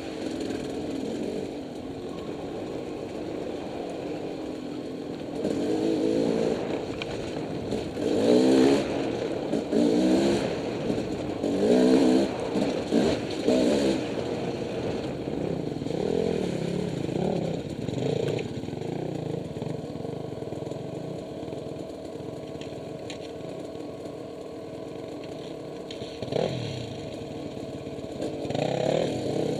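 Dirt bike engine heard from on the bike, running steadily, then revving up and down in repeated bursts through the middle and again near the end as it rides a rough, muddy trail.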